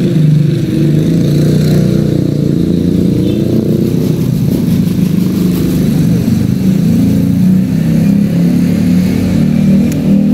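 A loud, steady engine drone whose pitch wavers slightly.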